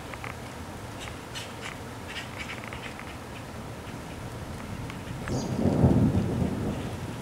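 Thunder rumbling low: it swells about five seconds in, peaks, and fades away over roughly two seconds. Faint short high chirps sound on and off around it.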